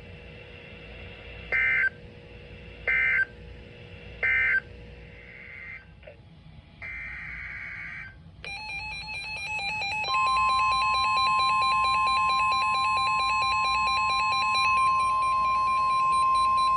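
Emergency Alert System data tones: three short, identical bursts of the end-of-message code closing a severe thunderstorm warning. Then the next alert's electronic tones begin, with a loud steady alert tone from about ten seconds in.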